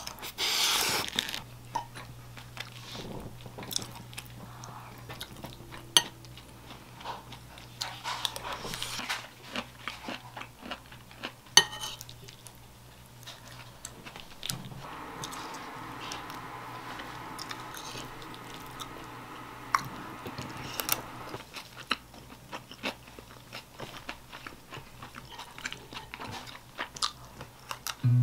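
Eating with a metal spoon from a ceramic plate: scattered clinks and scrapes of the spoon against the plate, two of them sharp and loud, between soft chewing. A low steady hum runs underneath.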